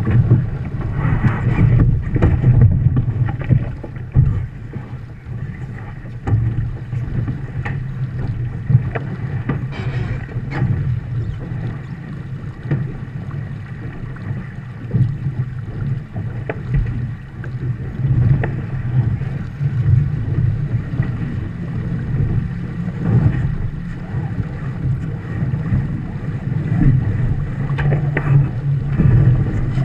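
Viper 640 sport boat sailing fast: a steady low rumble of wind buffeting the deck-mounted camera's microphone and water rushing along the hull, with occasional sharp knocks from the rigging and crew.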